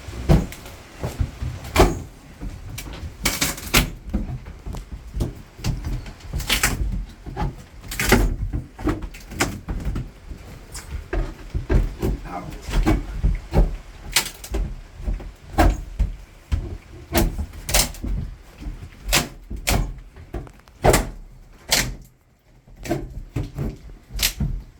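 Irregular knocks and bangs of hand demolition work, dozens of sharp impacts of varying loudness, some close together and some a second or more apart.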